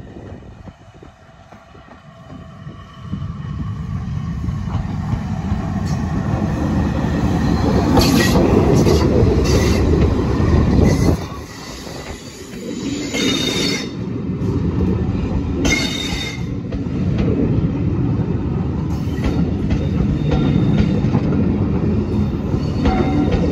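A steam locomotive hauling coaches approaches and passes close by, the sound building from about three seconds in. The coaches then rumble past with their wheels clattering over the rails.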